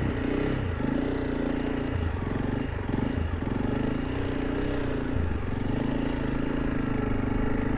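Honda CRF300 Rally's single-cylinder engine running steadily, its note rising and dipping a little a few times with the throttle.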